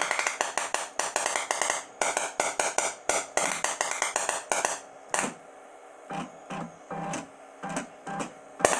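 Electrical discharge sparks snapping under tap water between a homemade EDM machine's silicon bronze electrode and a steel bolt, fed from a capacitor bank. Rapid sharp snaps come several a second for about five seconds, then scattered pops, with one loud crack near the end.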